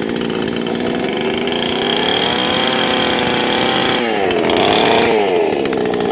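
Chainsaw running, its pitch rising as it is revved about two seconds in, dropping briefly near four seconds, then revved up again and falling back near the end.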